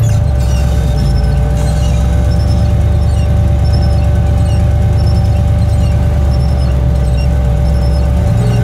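Steady drone of a turbo Suburban driving on a snowy road, heard from inside the cabin, with a steady whine above it. Faint short squeaks from the new windshield wipers repeat about once a second.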